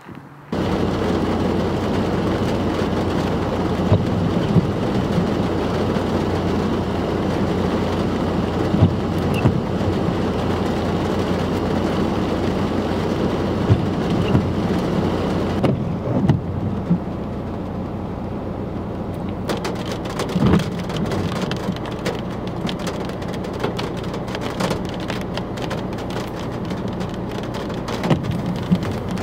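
Heavy rain falling hard during a thunderstorm, with thunder. The downpour sets in abruptly just after the start, with a few sharper bursts over it.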